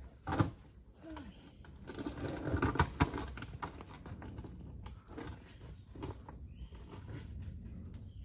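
Rustling, scraping and scattered knocks of a hiker's clothing, backpack and boots against rock while squeezing through a narrow rock crevice. The sharpest knocks come about half a second and three seconds in.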